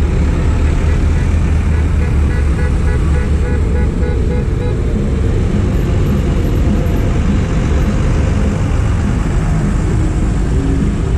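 Diesel tractors driving past one after another in a road convoy, their engines making a loud, steady low rumble that is heaviest as the first tractor goes by.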